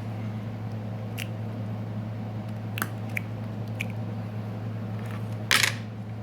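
Steady low hum with a few light clicks and one short, louder rustle about five and a half seconds in.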